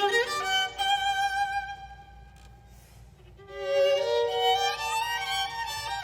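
Violin playing a classical piece. A run of notes leads into a held note, which fades into a brief pause about two seconds in. Playing resumes a little over a second later.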